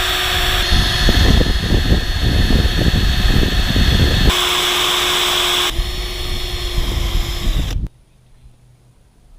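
Power drill running as it fastens a roof fan's frame. From about a second in to four seconds in it judders under load as it drives into the material, then it spins freely at a steady whine, dips slightly in pitch, and stops abruptly near the end.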